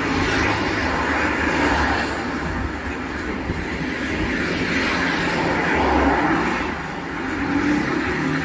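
Road traffic on a city street: cars driving past, a steady wash of engine and tyre noise that swells and fades as vehicles go by.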